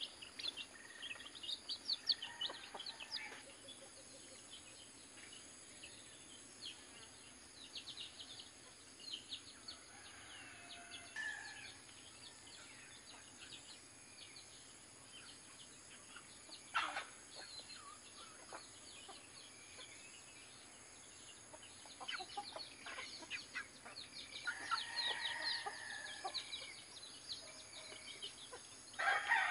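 Chickens clucking on and off, more steadily in the last several seconds, over many short, high chirps. A single sharp tap about halfway through.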